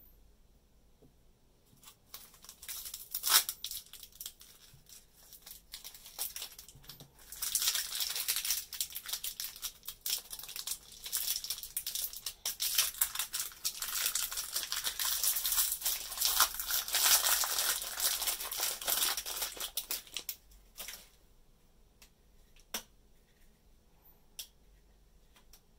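Crinkly glittery toy wrapping being peeled and torn open by hand. A few crackles come first, then a dense crackling runs from about seven seconds in to about twenty seconds and stops, leaving a few faint clicks.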